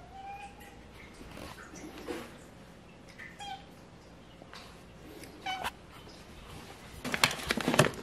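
A pet cat meowing a few short times, begging for food. Near the end, loud crinkling of a foil cat food bag being handled.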